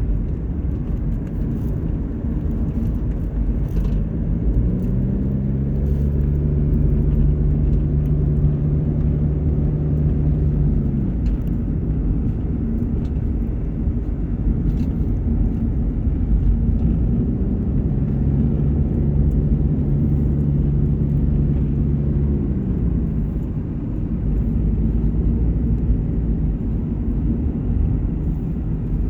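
Car driving, heard from inside the cabin: a steady low rumble of engine and road noise. Twice the engine note rises and holds for about six seconds before dropping away, about five seconds in and again near seventeen seconds.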